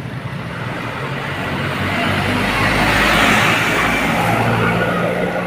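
Bus passing close by: engine and tyre noise swell to a peak about three seconds in and then ease off.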